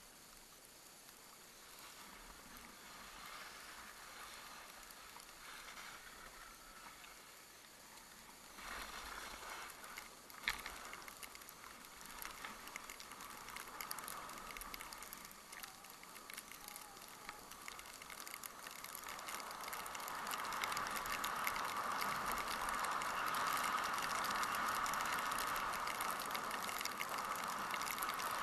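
Skis sliding and scraping over snow: a rattly hiss that grows louder over the last third, with one sharp click about a third of the way in.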